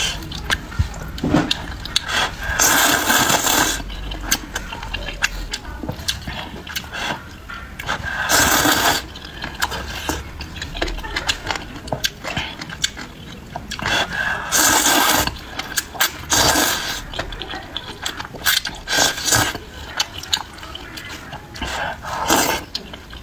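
Close-miked eating of spicy noodle soup: about six long slurps of noodles and broth a few seconds apart, with wet chewing and mouth clicks between them.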